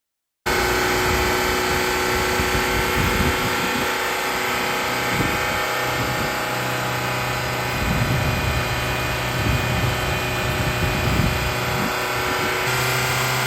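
Lancia Delta HF Integrale Evoluzione I's turbocharged four-cylinder engine running at a steady pitch, with a low hum that comes and goes and irregular low rumbles.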